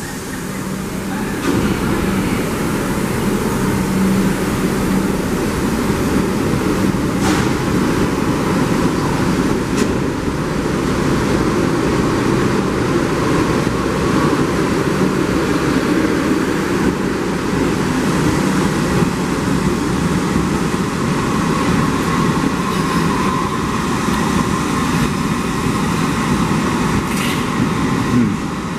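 New York City Subway train pulling out along the platform: a steady rumble of wheels and motors that grows louder about a second and a half in and holds, with a faint whine in places.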